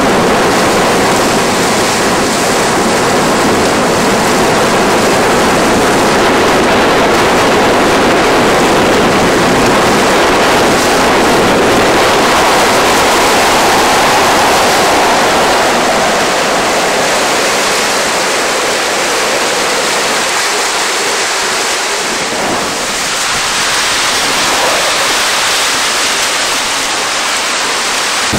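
Sea surf washing against a rocky shoreline: a loud, steady rush of water noise with no separate breakers standing out, a little softer in the later part.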